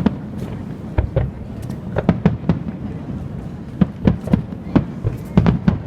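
Fireworks display: aerial shells bursting in about a dozen sharp bangs at irregular intervals, some coming in quick clusters of two or three.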